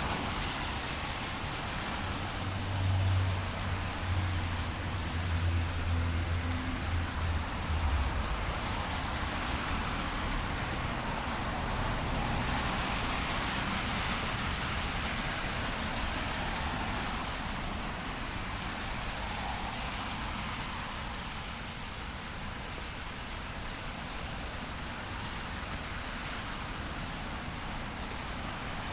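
Steady rain hiss on a city street with road traffic. A vehicle's low rumble passes about two seconds in and fades out around eight seconds in.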